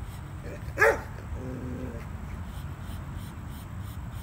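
A black Labrador yelps once, sharply and loudly, about a second in. A brief low whine follows.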